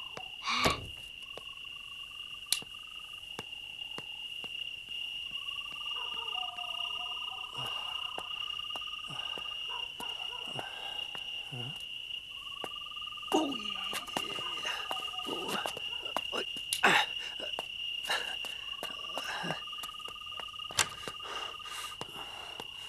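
Night ambience of crickets: a steady high chirping throughout, with a lower trilling call that comes four times for a couple of seconds each. A few sharp knocks and clicks, the loudest about a second in, with a click near the end as a door handle is taken hold of.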